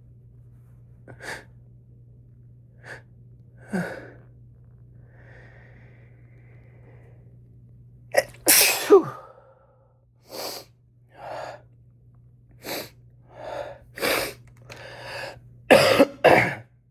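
A woman with a heavy, congested cold sneezing, the sneezes unstifled. There are a few soft sniffs at first and one loud sneeze a little past halfway. A string of shorter bursts follows, then two loud sneezes in quick succession near the end.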